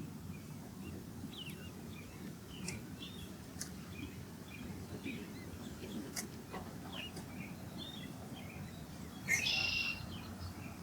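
Birds chirping in short scattered calls, with one louder, longer call about nine seconds in, over a steady low background rumble.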